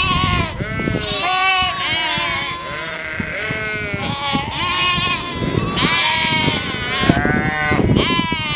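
A flock of sheep and lambs bleating, many calls overlapping without pause, some high-pitched and some lower.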